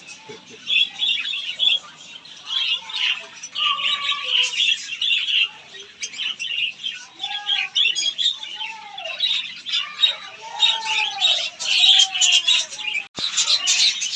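A flock of caged pet birds chattering throughout, a dense high twittering mixed with many short arched calls lower down.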